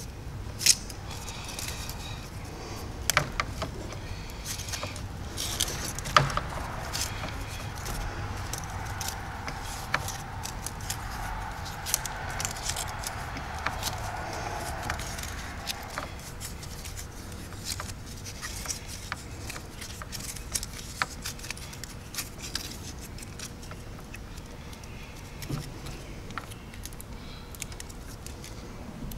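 Electrical tape being wound by hand around an engine wiring harness: scattered small clicks, crinkles and rubbing of the tape and wires, with a longer hazy stretch of tape-handling noise near the middle.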